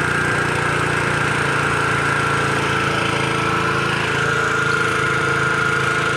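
Small engine running steadily at constant speed, with a steady high tone above its hum.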